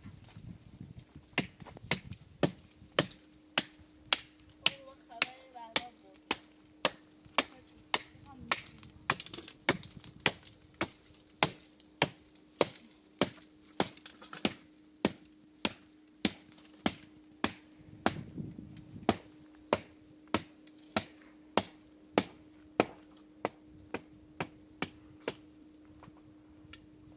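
A long run of sharp, evenly spaced knocks, nearly two a second, stopping shortly before the end, with a faint steady hum underneath from a couple of seconds in.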